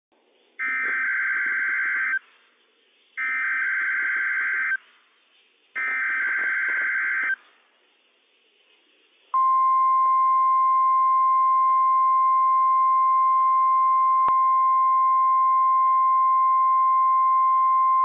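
NOAA Weather Radio emergency alert signal: three raspy digital SAME header bursts of about a second and a half each with short gaps, then the steady 1050 Hz warning alarm tone held for about nine seconds. It is sent as a required weekly test of the warning system.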